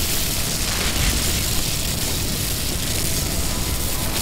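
Steady rushing, rumbling roar with a deep low rumble underneath, a film sound effect for the magical rift and the spell cast against it.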